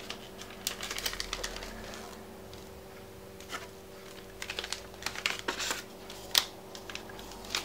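Paper warranty cards and a fold-out instruction leaflet rustling and crackling as they are handled and unfolded, in irregular short crackles, over a faint steady hum.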